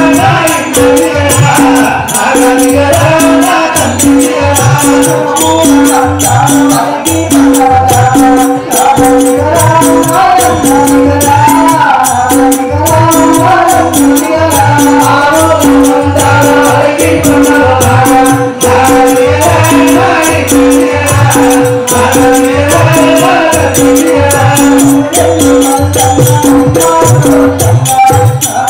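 Live devotional folk music through a microphone and loudspeakers: a man singing over a held drone note, with a steady beat and jingling rattle-like percussion.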